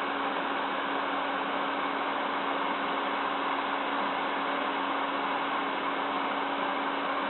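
PC case fan running steadily: an even rush of air with a steady low hum.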